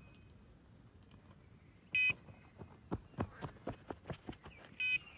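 Electronic carp bite alarm giving short single beeps, one about two seconds in and one near the end, the sign of line moving over the alarm's sensor. A string of irregular clicks sounds in between.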